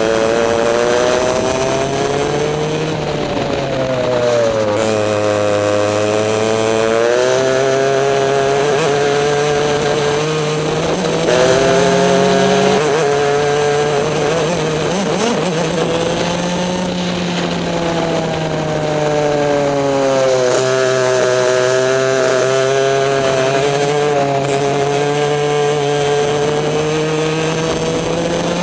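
Racing kart's two-stroke engine heard onboard at full race pace. Its pitch falls several times as the kart slows for corners, then climbs again as it accelerates out.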